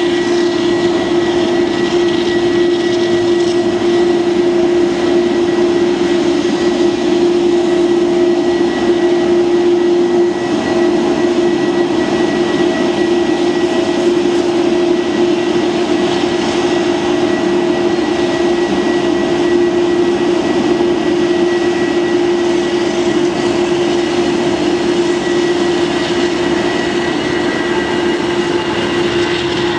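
Airbus A318's CFM56 jet engines running with a steady hum and a thin high whine over a broad rush of noise. Near the end the pitch of the tones slides as the jet passes on its takeoff roll.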